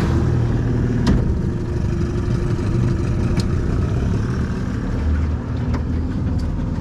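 Small tiller-steered outboard motor running steadily, pushing an aluminium boat along at low speed, with a couple of light knocks about a second in and again past three seconds.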